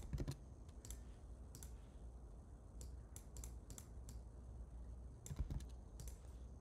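Faint, irregular clicks and taps of a computer keyboard and mouse during copying and pasting, with a louder cluster of taps about five seconds in.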